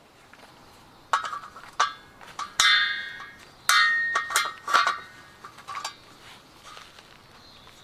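Metal objects clinking and knocking together in an irregular series of strikes, some ringing on briefly.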